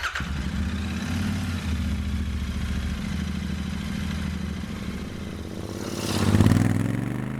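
Royal Enfield Interceptor 650's parallel-twin engine idling steadily, then revved once about six seconds in, the pitch rising and falling back.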